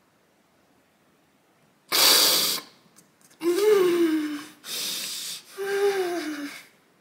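A man sobbing theatrically: a sharp gasping breath, then a whimpering wail that falls in pitch, and the same again, twice in all.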